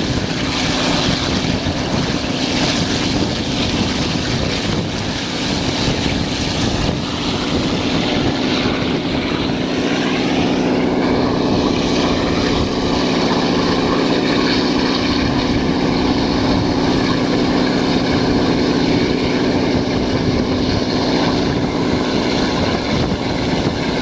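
Diesel locomotive hauling a passenger train, its engine droning steadily over a constant rush of wheel and air noise, heard from an open carriage window. A faint whine rises in pitch about ten seconds in.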